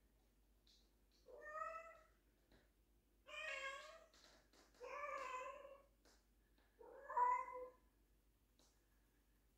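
Tabby house cat meowing four times, each meow a drawn-out call of about a second with short pauses between.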